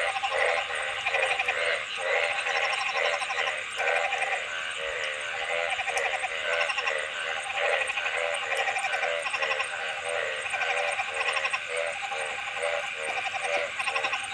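Frogs calling in chorus: rapid pulsed croaks, each lasting under a second, repeated over and over by several overlapping callers.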